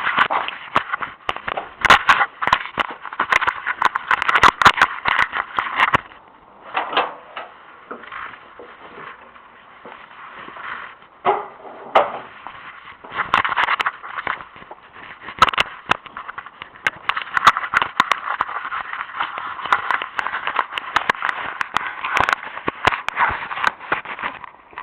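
Footsteps and rustling handling noise from walking with a recorder: dense, irregular clicks and crackle over a hiss, thinning out from about six to thirteen seconds in before picking up again.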